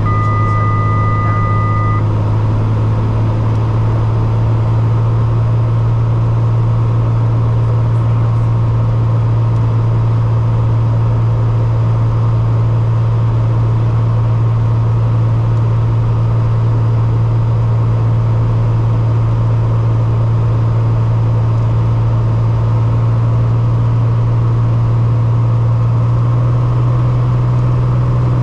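Steady low drone of an aircraft's engines heard from inside the aircraft, with a strong constant hum that rises slightly in pitch near the end as the power changes. A steady electronic two-note tone sounds for about the first two seconds.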